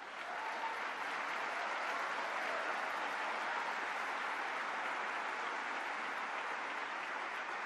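A large seated audience applauding, a steady round of clapping that holds at an even level throughout.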